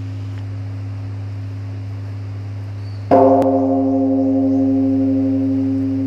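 Large bronze Korean Buddhist temple bell (beomjong) humming from an earlier stroke, then struck again with a swung wooden log about three seconds in. The new stroke adds brighter ringing tones that slowly fade over the steady low hum.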